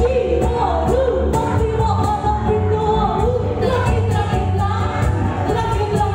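A live pop band plays, with a sung vocal melody over keyboard, bass guitar and electric guitar and a steady beat.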